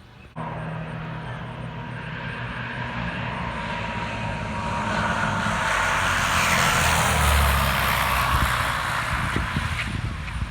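Light propeller airplane engine passing by, growing louder to a peak about seven seconds in and then easing off.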